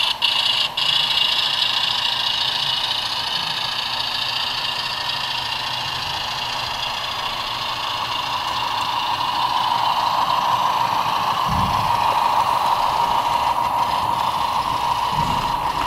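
HO-scale DCC model diesel train running along the layout track, a steady hum and whine that swells as it passes close. Two short low thumps come near the end.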